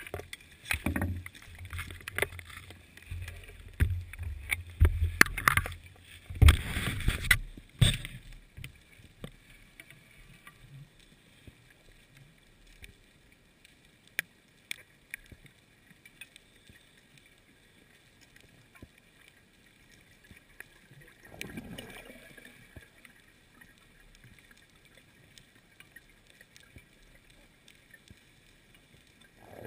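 Underwater audio from a diving camera housing. Over the first eight seconds there is a run of knocks and bumps with a low rumble, as the housing is handled against the diving gear. After that comes a quiet hiss with scattered faint clicks, and a short rushing sound of water a little past the twenty-second mark.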